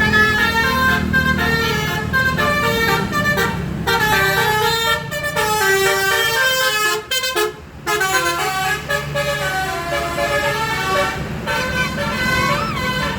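An Indonesian bus's 'basuri' musical horn playing a fast tune of stepped notes, with a short break about seven seconds in, over the low steady hum of the bus's engine.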